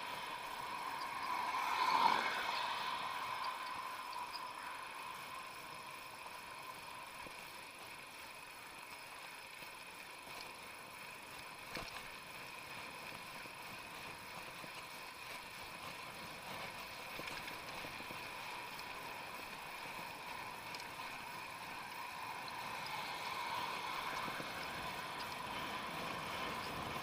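Bicycle riding noise, steady tyre and wind noise with a faint steady whine. A car goes by about two seconds in, and there is a single click near the middle.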